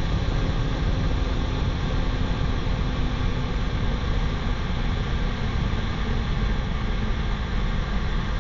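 Steady deep roar of F/A-18 jet engines and rushing air, picked up by a camera mounted on the outside of the jet in flight.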